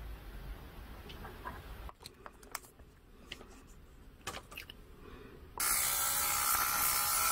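Small handheld electric hobby drill fitted with a 0.5 mm bit: a few light clicks as the bit and drill are handled, then the motor starts suddenly about five and a half seconds in and runs steadily with a hissing sound.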